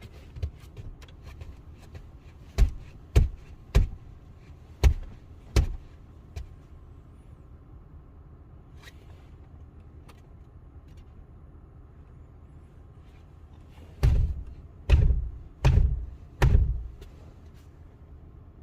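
Dull thumps of a hand pushing down on a car seat cushion, about five in a row, then after a pause four heavier pushes. The seat is pressed to see whether the occupant-presence sensor responds.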